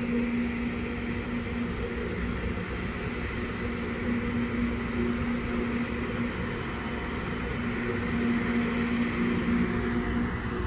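LORAM rail grinder's diesel engines running as the machine approaches slowly: a steady low hum over a broad rushing noise.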